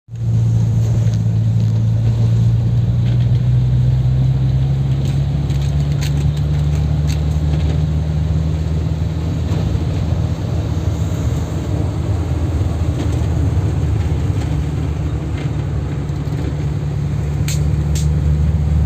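A vehicle engine running steadily with a low, even hum, and a couple of sharp clicks near the end.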